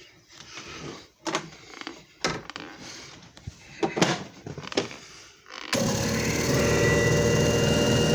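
Clicks and knocks of handling, then nearly six seconds in the JFJ Easy Pro disc repair machine's motor switches on and runs with a loud, steady hum.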